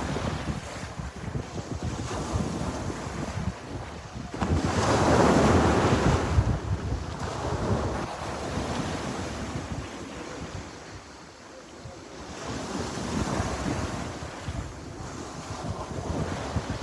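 Sea waves washing onto the shore in a continuous rushing surf, with one big wave breaking loudest about five seconds in and a smaller swell later on.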